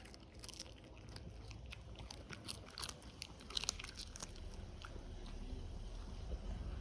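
A dog crunching and chewing dry treats: a string of short, sharp crunches that thin out after about five seconds.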